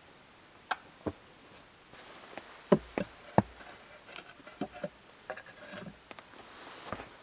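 A series of irregular knocks and clicks, about a dozen, with the loudest two near the middle, some leaving a short ringing tone.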